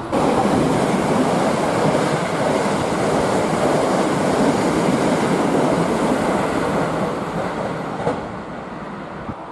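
A train passing close by: a loud, steady rush of wheel and rail noise that eases off near the end.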